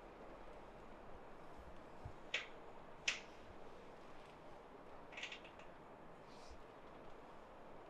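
A few short, sharp pops from the massage: two single ones under a second apart, then a quick run of three or four about two seconds later, over a faint steady hiss.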